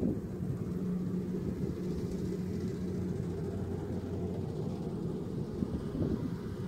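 Kubota rice combine harvester's diesel engine running steadily at a distance, a low even hum.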